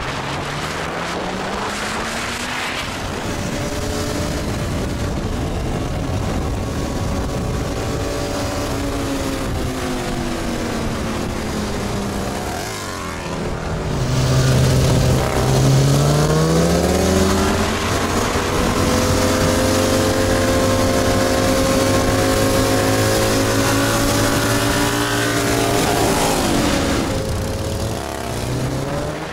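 Buell M2 Cyclone's air-cooled V-twin running at road speed close by. Its pitch climbs near the start, holds, dips and climbs again midway, and falls off near the end as the rider accelerates and eases off, over steady wind and road noise.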